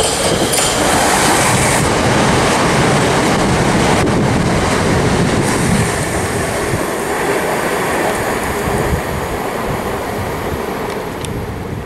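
Southeastern electric multiple-unit passenger train passing close by underneath, a loud steady rush of wheels on rails that eases off after about nine seconds as the train draws away.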